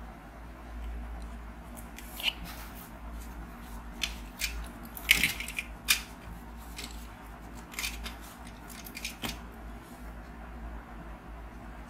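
Hard plastic clicks and taps as fingers handle the LEGO Super Mario interactive figure, scattered and irregular, loudest about five to six seconds in, over a low steady hum.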